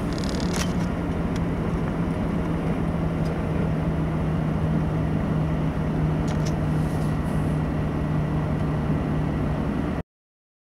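Heavy truck's diesel engine running steadily at a constant speed while driving, heard from inside the cab, with a few light clicks and rattles. The sound cuts off abruptly near the end.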